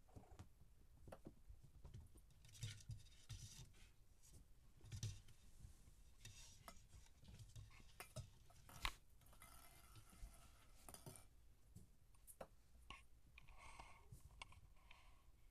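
Faint scuffling and scratching of kittens' paws on carpet, with light taps and thumps as they bat a ball and paw at wooden doors; a few taps stand out, the loudest about nine seconds in.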